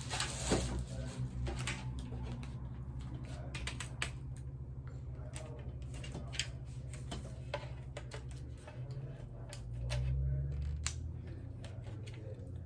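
Irregular clicks and light knocks as the parts of a ring light stand are handled and fitted together, over a steady low hum.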